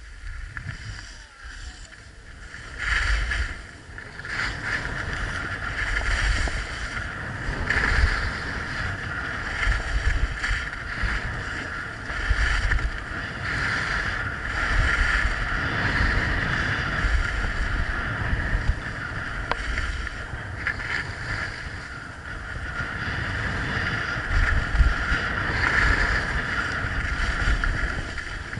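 Skis scraping and hissing over groomed snow through a run of turns, with wind rushing over the microphone. The sound picks up about three seconds in, then swells and fades with each turn.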